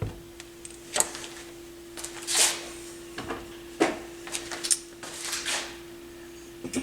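Several short scrapes and clicks of hands and a tool working on a turntable during a speed adjustment, over a steady hum.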